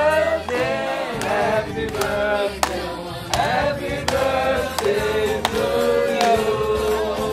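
Several voices singing together, with musical backing.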